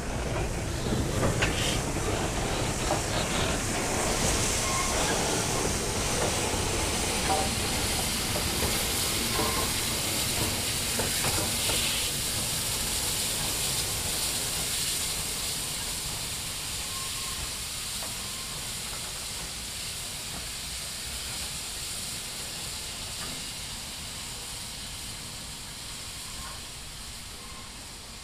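Steam locomotive hissing steam, loud at first and then fading gradually.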